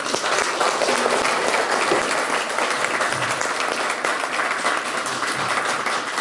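Applause: many people clapping steadily together.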